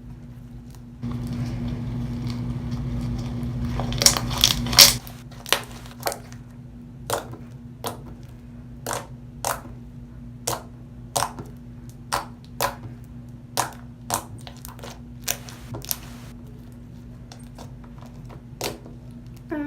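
Glue slime being kneaded to mix in pink food colouring: a short stretch of rustling noise, then a run of sharp wet clicks and pops, roughly one a second.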